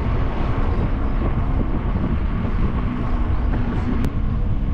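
Wind rumbling on the microphone of a moving bicycle: a steady, loud low rumble.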